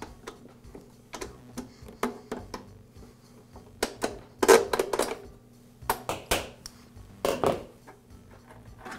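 Needle-nose pliers and a steel hinge pin clicking and scraping against a Toro mower's plastic side discharge deflector as the pin is slid out of the hinge. Irregular light clicks, with louder clacks in a few clusters around the middle.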